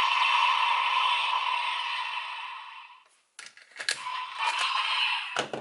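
Magnum Shooter toy gun's electronic finisher sound effect playing from its small speaker, fading out about three seconds in. It is followed by a run of sharp plastic clicks and rattles as the toy is handled.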